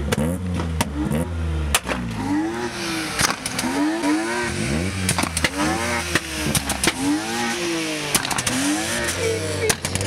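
BMW 3 Series Compact engine revved hard again and again, its pitch sweeping up and falling back roughly every second, with sharp pops between the revs.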